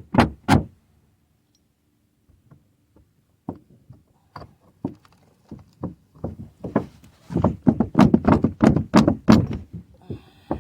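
A series of knocks and thumps: two loud ones at the start, scattered light clicks, then a fast run of loud knocks, about four a second, in the second half.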